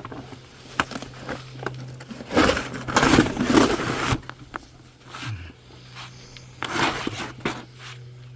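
Scuffing, crinkling and scraping of a person crawling through a tight crawlspace, with scattered knocks and two louder stretches of shuffling movement, over a steady low hum.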